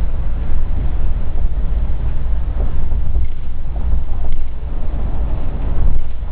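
Steady low rumble of a moving coach bus, heard from inside the passenger cabin.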